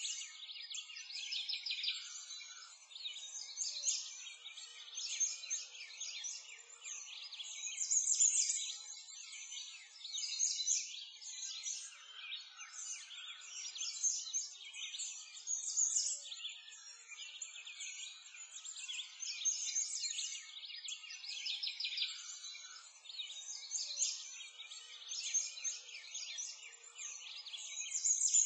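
A dense chorus of many small birds chirping and twittering without pause, all high-pitched with no low sounds beneath.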